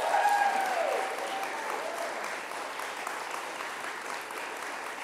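Audience applauding as an applause vote for the motion. Loudest at the start, with a voice calling out over the clapping in the first second or two, then the clapping eases off gradually.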